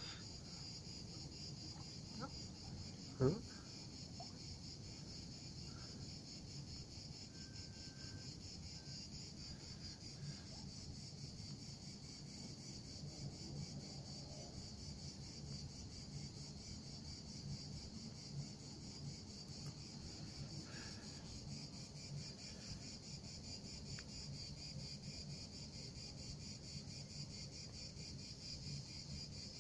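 Crickets chirring steadily, a faint high continuous chorus, with one soft knock about three seconds in.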